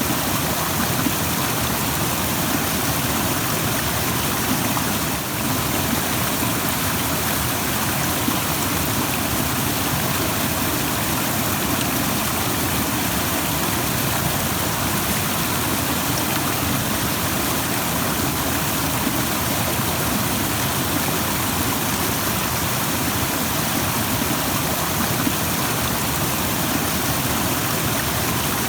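Rushing stream: water flowing fast over rocks in a steady, unbroken rush.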